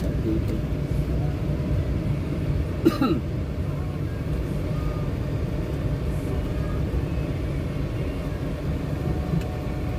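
Steady low rumble of a car's engine and tyres heard from inside the cabin while driving in city traffic. There is one short, sharp sound about three seconds in.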